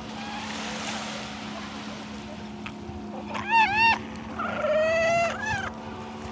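Young seals bleating on the beach over the wash of small waves: two short, loud cries that rise and fall, then a longer, lower cry about a second later.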